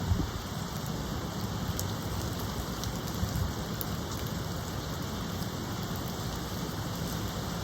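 Steady rain falling, with brief low thumps just after the start and again about three seconds in.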